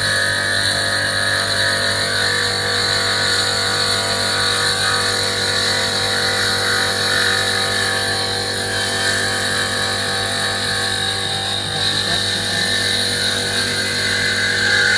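Stained glass grinder running steadily, its diamond bit grinding the edge of a piece of glass fed along the fence, with a constant motor hum under the hiss of the grinding.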